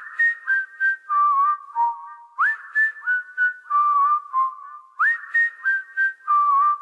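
A whistled melody opening a song: a short phrase of clear notes, each sliding up into pitch, repeated about every two and a half seconds, with light ticks in time.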